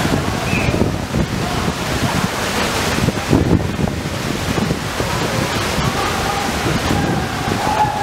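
Katekh waterfall, about 18–20 m high, pouring into its plunge pool: a steady, loud rush of falling water. Faint voices of bathers carry over it about half a second in and again near the end.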